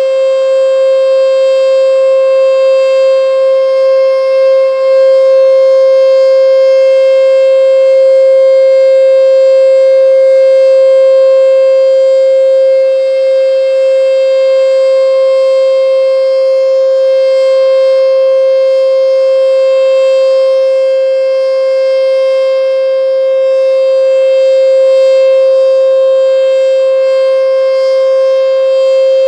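ASC T-121 outdoor warning siren sounding its steady alert signal: one loud, unbroken, held pitch.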